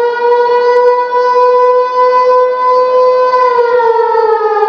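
Outdoor tornado warning siren wailing loudly, holding a steady pitch and then starting to fall about three and a half seconds in.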